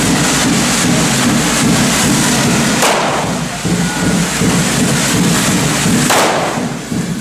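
Several handheld correfoc firework fountains (carretilles on devils' pitchforks) spraying at once, making a loud, continuous hiss and crackle. Two sharper bangs come through, about three seconds in and again about six seconds in.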